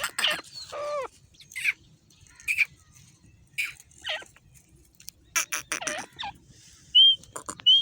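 Grey francolin calling: a string of short, sharp calls at irregular intervals, with a couple of brief high whistled notes.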